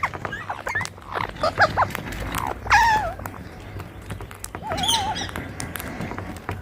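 Rose-ringed parakeets calling: a run of short chirps, then two longer wavering squawks about three and five seconds in, with scattered sharp clicks.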